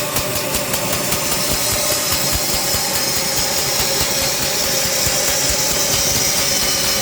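Sawmill machinery running steadily, with a constant hum under a strong high hiss.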